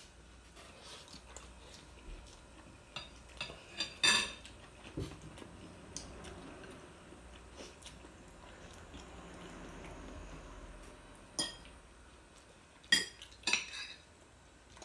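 Metal spoon clinking and scraping on a ceramic plate during a meal, in scattered single knocks with a short ring. The loudest clinks come about four seconds in and near the end, with a quieter stretch in between.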